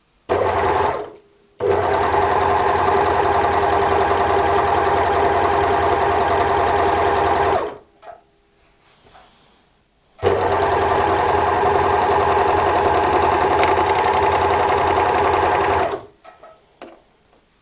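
W6 N454D overlock machine (serger) running while it stitches a pintuck test seam with its upper knife lowered. It gives a short burst at the start, then runs twice for about six seconds each, with a pause of about two and a half seconds between.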